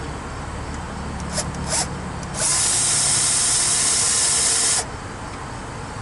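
Handheld power drill boring into copper refrigerant tubing. After a few clicks, it runs for a steady stretch of about two seconds, starting partway in and stopping near the end.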